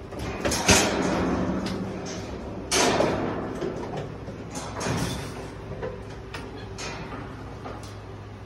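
Metal wire-mesh cage panels rattling and clanking as a capuchin monkey climbs and hangs on them. There are several loud clattering hits, each with a ringing rattle that dies away; the loudest comes about three seconds in.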